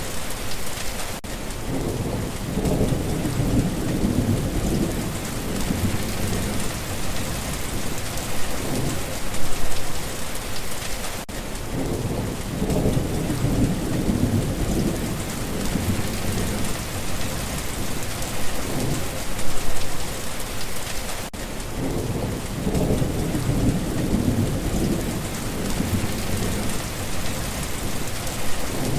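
Steady rain falling and pattering on surfaces, with distant thunder rolling in low rumbles about every ten seconds.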